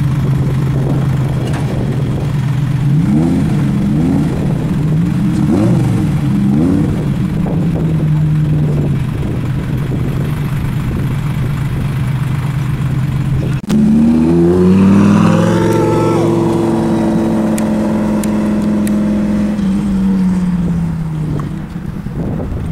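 Lamborghini Gallardo's V10 engine idling with several quick throttle blips. After an abrupt break about 14 seconds in, a car engine revs up, its pitch climbing, then holds and eases back down.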